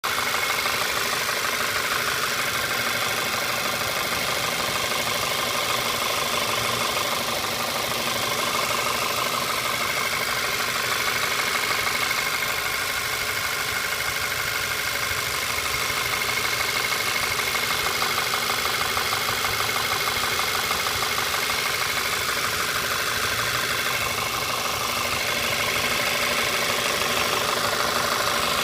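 2009 VW Tiguan engine idling warm, with a steady, rapid knocking or ticking that sounds like a diesel. The owner does not think it is normal. Suggested causes are the N80 valve or an injector missing its plastic spacer.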